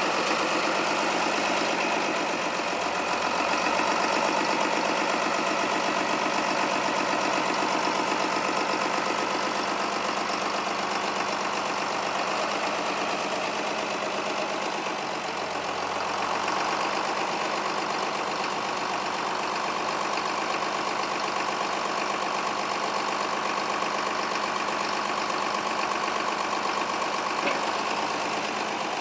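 John Deere 4010's 6.2-litre six-cylinder diesel engine idling steadily, with an even, fine-grained pulse.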